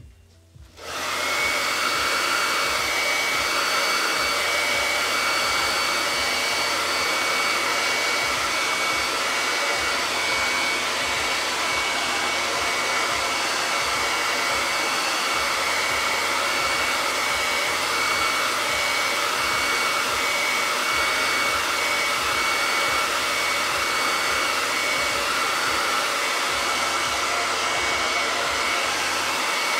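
Handheld hair dryer switched on about a second in and running steadily: a rush of air with a thin steady whine over it.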